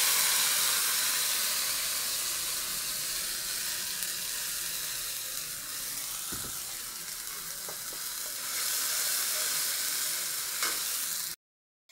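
Spice paste sizzling in hot oil in a kadai, with a metal spatula stirring it. The hiss is loudest at the start and slowly fades, swells again about eight seconds in, and cuts off abruptly near the end.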